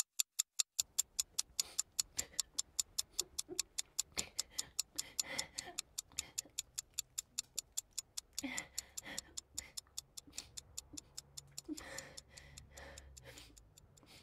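Rapid, even ticking, about four ticks a second, growing fainter toward the end.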